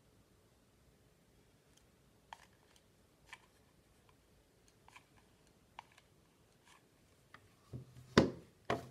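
Faint scattered clicks from a mini hot glue gun as its trigger is squeezed and a bead of glue is laid along a wooden craft stick. A louder knock and handling noise come near the end as the gun is put down.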